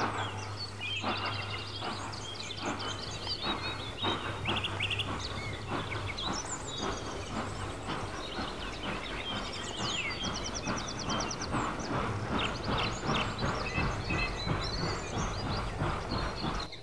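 Birdsong over the repeated clicking of an OO gauge model train's wheels running over the rail joints as the LNER A5 tank locomotive and its coaches pass, with a steady low hum underneath. The clicks come more quickly after about four seconds.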